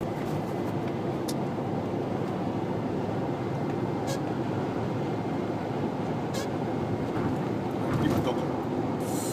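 Subaru car running with a steady low road and engine noise, broken by a short high-pitched squeak every two to three seconds. The squeak is the abnormal noise (異音) being shown.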